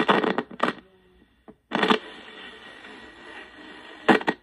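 Portable AM/FM radio-cassette player's built-in speaker giving bursts of static and hiss as the tuning knob is turned between stations, with a steadier hiss for a couple of seconds in the middle.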